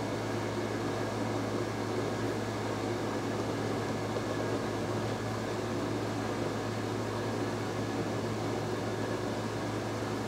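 A fan motor running steadily: an even whir with a low, constant hum.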